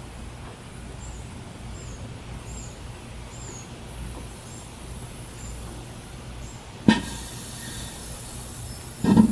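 Batteries baking in a toaster oven: after a low steady hum with faint high chirps, a cell pops sharply about seven seconds in and starts hissing as it vents. About two seconds later a louder rushing hiss with a steady whistling tone sets in, typical of a cell venting hard.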